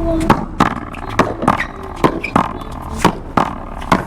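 One-wall paddleball rally: a hollow rubber ball cracking off the players' paddles and the wall in quick succession, about three sharp hits a second.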